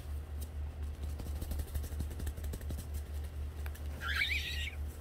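Blue-and-gold macaw giving a short, wavering squawk about four seconds in, over faint rustling of its feathers being scratched by hand and a steady low hum.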